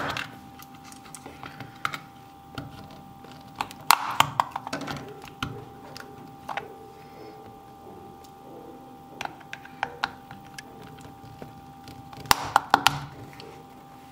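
Irregular clicks, knocks and small cracks of a steel pocketknife blade prying at the seam of a small plastic motion-sensor case. They come in clusters, loudest about four seconds in and again near the end. The seam resists; the owner thinks the case is ultrasonically welded shut.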